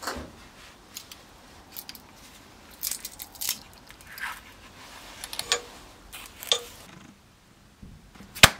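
Scattered light clicks and short scrapes of a 3D-printed PETG part being lifted off a taped printer bed and handled. One sharp click comes near the end.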